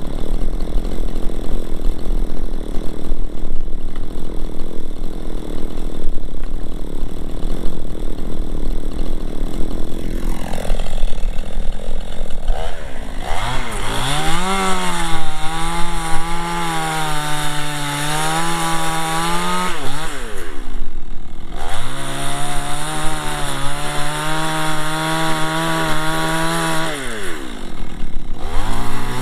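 Two-stroke petrol chainsaw idling, then revved to full throttle about halfway through and cutting firewood logs, its pitch holding with small dips under load. It drops back to idle twice between cuts and revs up again each time.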